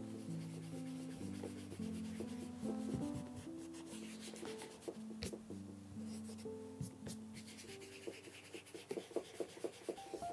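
A chamois cloth rubbing cream polish into a leather shoe, a soft scratchy scrubbing sound, under quiet melodic background music.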